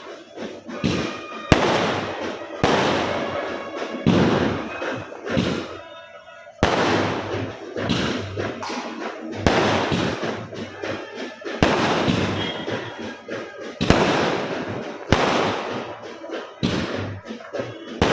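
Firecrackers going off one after another: about ten loud, sharp bangs spaced one to three seconds apart, each trailing off in an echoing rumble.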